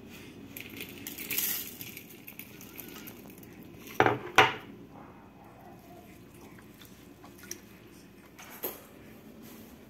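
Granola rattling as it is poured from a glass jar into a ceramic bowl of cornflakes, then two sharp clinks of glass and crockery about four seconds in, the loudest sounds. A couple of lighter clicks follow near the end.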